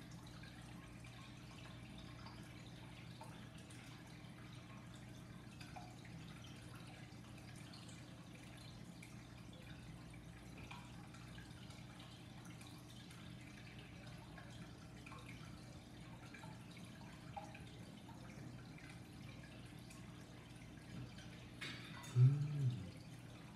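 Steady low electrical hum with faint scattered small ticks. Near the end a fork clinks once against a plate, followed by a short, louder burst of a man's voice.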